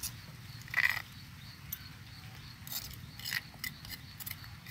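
A metal spoon clinking and tapping against a ceramic bowl while chili paste is spooned in: one louder ringing clink about a second in, then a run of small quick taps.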